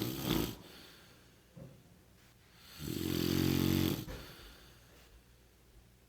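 A man snoring heavily in his sleep: the end of one loud snore at the start, then another long, pitched snore about three seconds in lasting about a second, with quiet breathing between. His sister takes the snoring as a sign he needs a CPAP machine.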